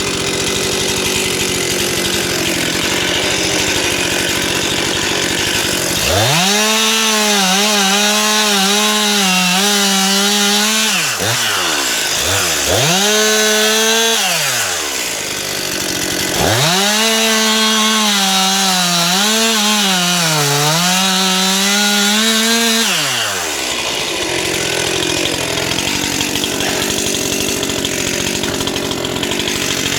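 Stihl MS 261 two-stroke chainsaw running at idle, then opened to full throttle three times, about five, two and seven seconds long, dropping back to idle between them. In the long run the pitch sags and recovers as the chain cuts into the wood under load.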